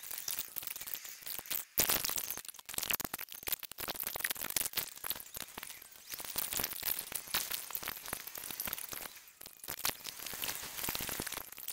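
Car cabin and road noise from a dashcam recording played back sped up, compressed into a dense run of rapid clicks over hiss.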